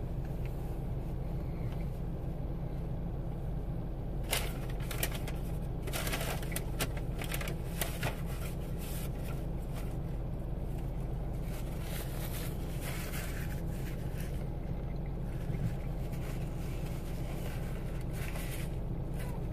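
Steady low hum of a car engine idling, heard inside the cabin, with scattered soft crackles and rustles of someone eating a chicken sandwich, mostly in the middle stretch.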